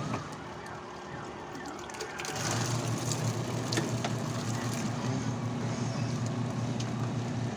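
Haceb washing machine running: a steady low motor hum starts about two seconds in and holds, over a hiss, with a few sharp clicks.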